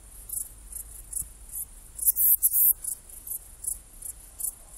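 Saddle-backed bush cricket (Ephippiger ephippiger) stridulating: a series of short, very high-pitched chirps in irregular groups, with a louder cluster about two seconds in.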